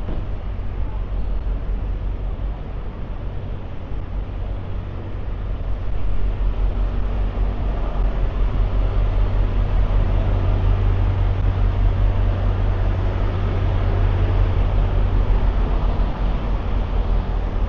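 Steady city road traffic with a heavy low engine rumble, getting louder about six seconds in as vehicles pass close by.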